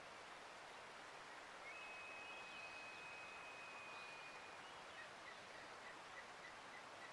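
Faint, steady hiss of running water with a bird singing over it: one long, steady whistled note lasting about three seconds, then a string of short repeated notes, about three a second.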